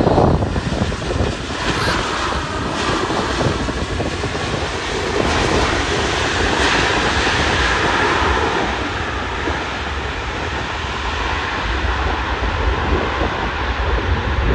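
C-5M Super Galaxy's four General Electric F138 turbofans in reverse thrust during the landing rollout: a loud, steady jet roar that swells a little about five seconds in and eases off toward the end.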